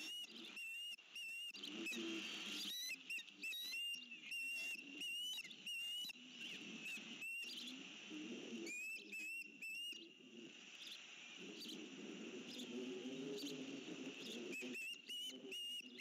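Ospreys calling: strings of short, high whistled chirps, several a second, coming in bursts, over a low rumble.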